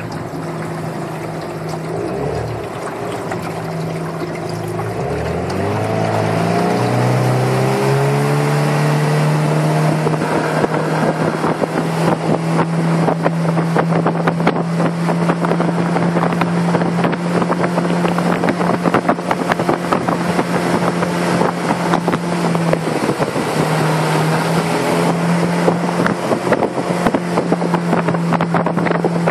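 Small boat's outboard motor. It is throttled up over the first several seconds, its pitch dipping twice and then climbing, and it then runs steadily under way, easing off briefly about two-thirds of the way through.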